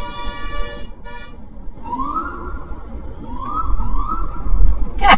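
A car horn is held and stops about a second in, followed by a short second tap. Then a police siren gives three short rising chirps, with road rumble swelling near the end.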